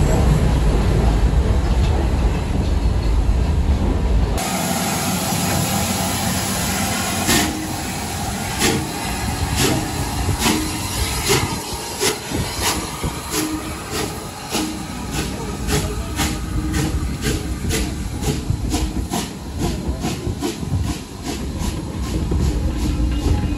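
Rebuilt Bulleid Battle of Britain class steam locomotive 34059 pulling its train away. A heavy low rumble gives way suddenly to steam hiss. Then come sharp rhythmic beats that start about a second apart and quicken steadily as the train gathers speed and its coaches roll past.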